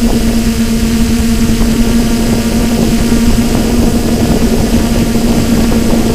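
Quadcopter drone hovering: its electric motors and propellers make a steady whine of unchanging pitch over a constant rush of air noise.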